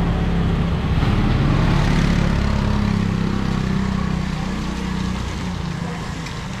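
A motor vehicle's engine running close by as it passes, loudest about two seconds in and fading toward the end.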